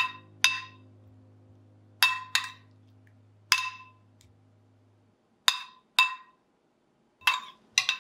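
Metal spoon clinking against a ceramic bowl as sauced potato balls are stirred and scooped: about nine sharp, ringing clinks, mostly in pairs.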